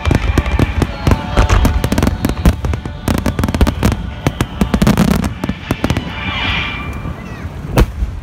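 Aerial fireworks shells bursting in rapid succession: a dense, continuous run of bangs and crackles, with one especially loud bang near the end.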